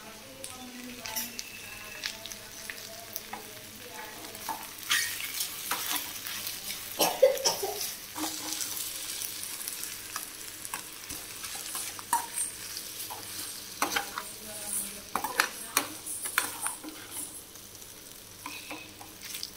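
Goat intestine (boti) with onions sizzling as it fries in oil in a steel kadai, while a perforated steel ladle stirs it, scraping and clicking against the pan at irregular moments; the loudest scrape comes about seven seconds in.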